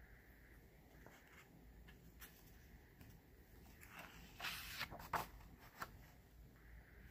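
Quiet handling of a hardbound photo book's pages: faint paper rustles, with a few louder swishes as pages are turned about four to five seconds in.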